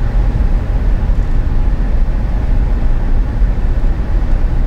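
Strong wind buffeting the microphone: a loud, irregular low rumble that rises and falls without a break.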